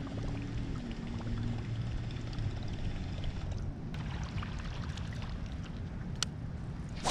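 Water splashing and trickling around a kayak on a lake, over steady wind noise. A faint hum fades out in the first second or two, and two sharp clicks come near the end.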